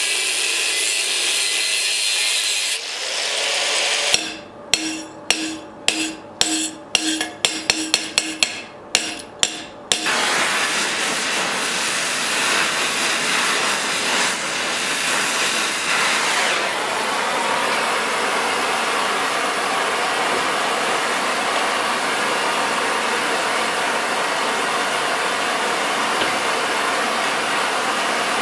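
Angle grinder grinding steel, then about a dozen sharp hammer blows on metal, each with a brief ring. After that comes the steady hiss of an oxy-acetylene torch flame.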